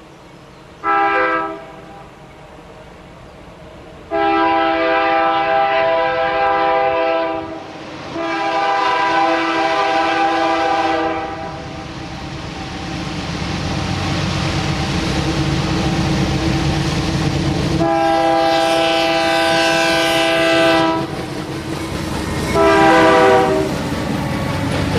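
Canadian National freight train's diesel locomotive horn blowing five chord blasts: a short one, two long ones, then after a gap another long one and a final short one. Under the later blasts the diesel locomotives' rumble grows louder as they accelerate up to and past the crossing.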